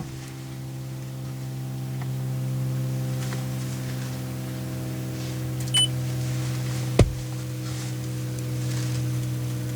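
Steady low hum made of a few even, level tones, with a short high beep a little before six seconds and a single sharp click about seven seconds in.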